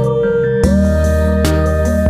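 Background music: a synthesizer melody holding notes and gliding up from one pitch to the next, over steady bass notes and sharp percussion hits.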